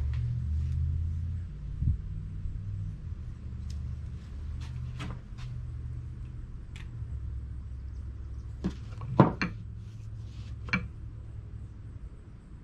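Scattered sharp metal clinks and knocks of tools and parts being handled during an engine teardown, a few of them close together near two-thirds of the way in, over a steady low hum.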